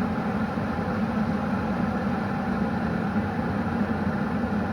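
Philips glass electric kettle heating water as it comes to a gentle boil: a steady low rushing and bubbling noise at an even level.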